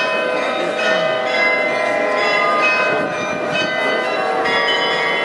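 Munich New Town Hall glockenspiel playing a tune: many tuned bells struck one after another, their notes ringing on and overlapping.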